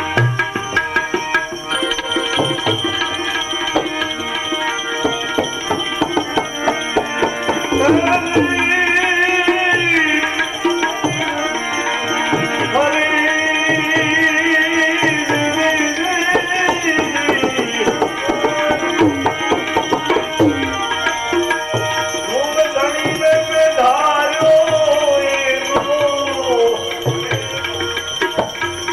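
Instrumental bhajan music: tabla playing a steady rhythm under a held drone, with a sliding, wavering melody line coming in and out over it.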